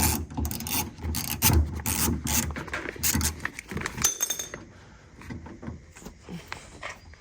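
Ratchet with a T27 Torx socket loosening the screw of a truck's inside door handle: a quick run of clicks and scraping that stops about four and a half seconds in, followed by faint handling noise.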